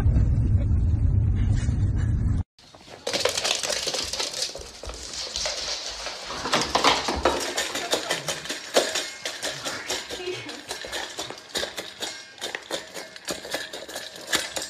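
Low rumble in a car's cabin for about two seconds, then after a short break a dog eating from a stainless steel bowl: quick irregular clinks and clatters of food and its collar tag against the metal bowl.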